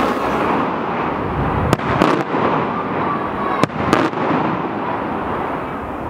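Aerial fireworks bursting overhead: two sharp cracks about two seconds apart, each followed by a short flurry of pops, over a steady rushing noise.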